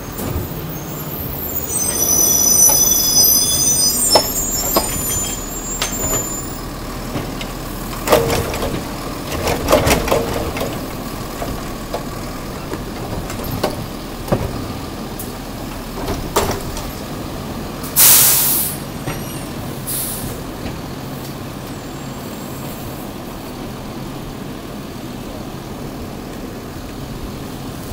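Garbage truck pulling up and idling, with a high brake squeal as it comes to a stop in the first few seconds. Scattered knocks and short hisses follow, then a loud burst of air-brake hiss a little past the middle.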